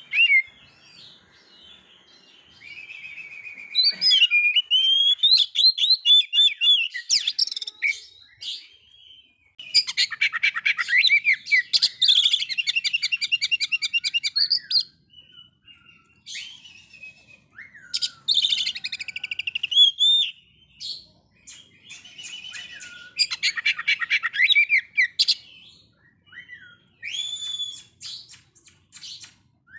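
Oriental magpie-robin singing: long phrases of varied whistles and fast rattling trills, broken by short pauses.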